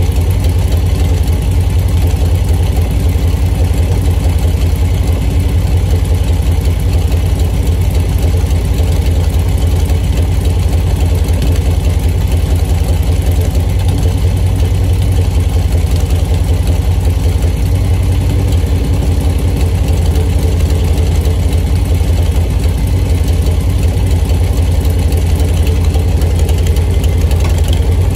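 1940 Harley-Davidson UL's flathead V-twin engine idling steadily, a loud, low, even engine sound with no change in speed.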